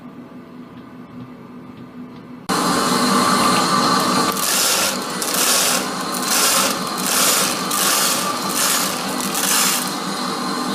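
Faint steady hum, then about two and a half seconds in the sudden loud clatter of an HO-scale model train of hopper wagons and a locomotive rolling close past, the rhythmic beat of its wheels coming about twice a second.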